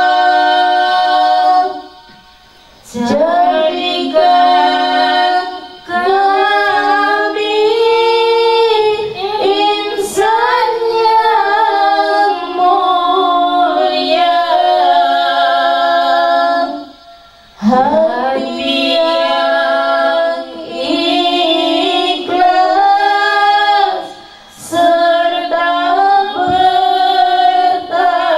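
A group of women singing an Islamic devotional song (sholawat) in unison into microphones, unaccompanied, in long phrases separated by three short breaks.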